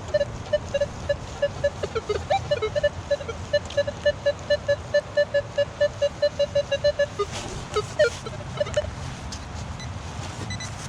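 Metal detector target tones: a few short beeps that shift in pitch, then a long run of evenly spaced beeps at one pitch, about five a second and speeding up slightly, which stops about seven seconds in. A few more beeps come just after.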